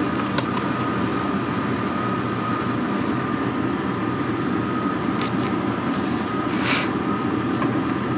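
Van engine idling steadily, with a thin steady tone running over the low rumble. A few light clicks and a short rustle of plastic packaging about seven seconds in.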